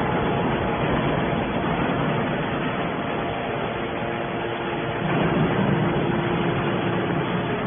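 Hydraulic aluminium-can baler running: a steady machine noise from its motor and pump, with a faint steady hum and a slight swell about five seconds in.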